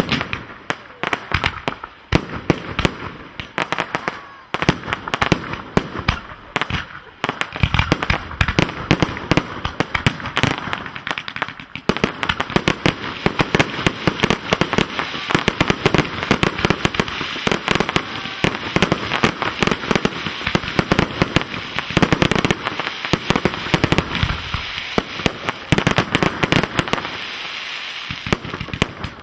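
Professional display fireworks, shells and cakes, firing and bursting in rapid succession, many sharp bangs a second. From about twelve seconds in, the bangs run together under a dense crackle.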